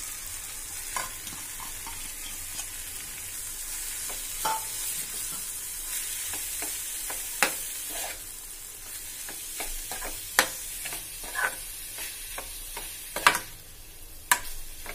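Paneer and onion-tomato masala sizzling in a metal frying pan while being stirred with a metal spoon, which scrapes and clinks against the pan. Several sharp clinks stand out over the steady sizzle, the loudest in the second half.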